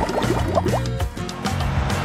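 Background music with a cartoon sound effect of concrete pouring from a mixer chute: a run of quick rising glides that stops about a second in.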